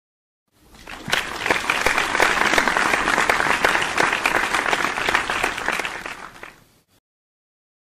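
A crowd clapping, a dense patter of many hands. It fades in about half a second in and fades out near the end, with dead silence on either side.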